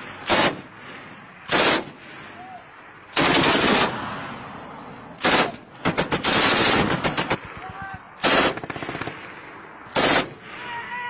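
Bursts of automatic machine-gun fire. There are about seven bursts, mostly short, with two longer rattling strings of rapid shots in the middle, the longest lasting about a second and a half.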